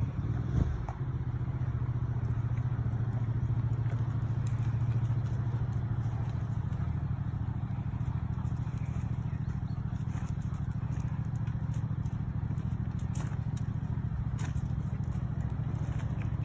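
Engine starting about half a second in, then running steadily at an even low hum.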